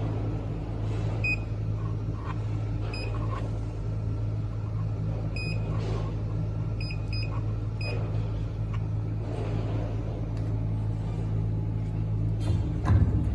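Electric tapping machine humming steadily, with short high electronic beeps about six times, two of them in quick succession, and a single thump near the end.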